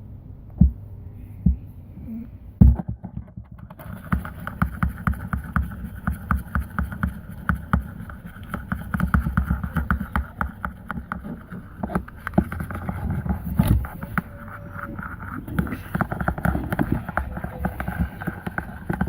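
A few knocks, then a utensil stirring sour cream and salt in a bread pan, with rapid clicking and tapping against the pan for most of the rest.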